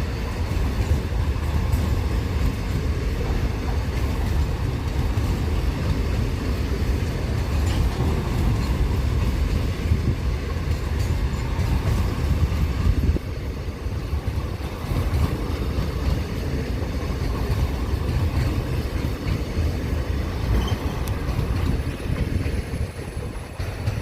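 Car-carrier train wagons rolling past, a steady low rumble of wheels on rail that drops a little in level about halfway through.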